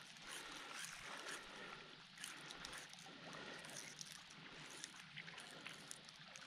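Faint trickling and lapping of water, with scattered light clicks and ticks throughout.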